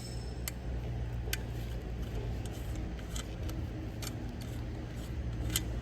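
Scattered light metallic clicks and clinks from wrenches and bicycle parts being handled, over a steady low rumble.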